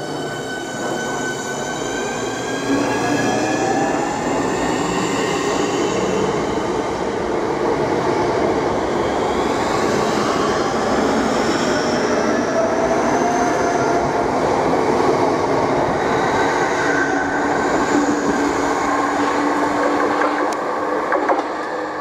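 Southeastern Class 465 Networker electric multiple unit running into the platform: a whine of several tones gliding in pitch over the first few seconds, over the steady running noise of wheels on rail as the carriages pass close by.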